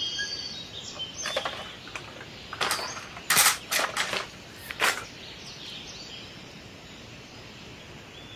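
Cardboard toy boxes being handled and stacked: a handful of sharp knocks and rustles in the first five seconds, the loudest about three and a half seconds in.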